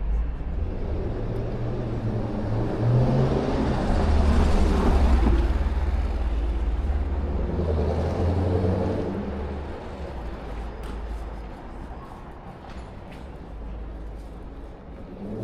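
Street traffic: motor vehicles passing close by with a low engine rumble, swelling twice and loudest about four to five seconds in, then fading away after about ten seconds.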